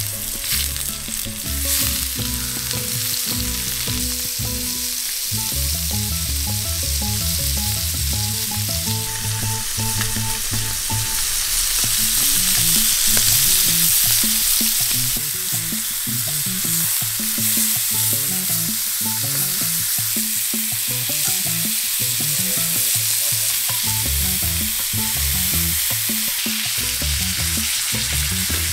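Blackened-seasoned amberjack fillets searing in hot olive oil in a stainless steel frying pan over a gas burner: a steady sizzle that swells for a few seconds in the middle.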